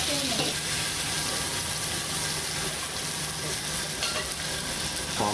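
Pomfret shallow-frying in hot oil on a pan, with a steady sizzle.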